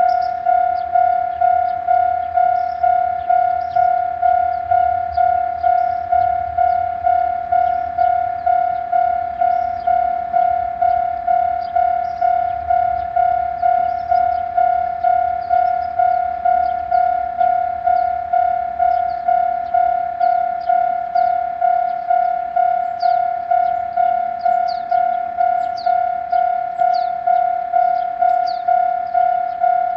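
Japanese level-crossing warning bell ringing steadily at about two strikes a second, each strike a single tone that quickly fades; this crossing is known for its odd-sounding bell. A low rumble runs under it through the first half, and short high chirps come near the end.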